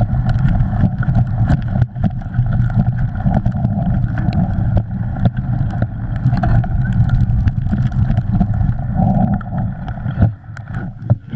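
Mountain bike ridden fast over a muddy, rough forest trail: a steady rumble of tyres and wind on the camera's microphone, with many quick rattles and knocks from the bike over roots and bumps. It drops off about ten seconds in as the bike slows.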